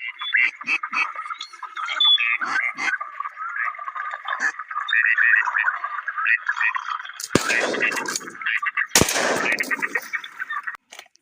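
Two shotgun shots about a second and a half apart, each followed by a reverberant tail, over continuous high-pitched chattering calls.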